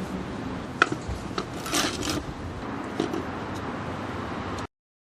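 A few sharp knocks and a short scraping sound over a steady low background rumble. The sound cuts off abruptly near the end.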